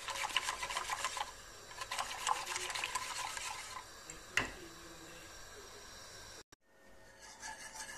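Wire whisk beating a thin milk and flour mixture in a stainless steel pot: quick, dense scraping and clinking strokes against the pot, a sharp tap on the pot about four seconds in, then lighter stirring.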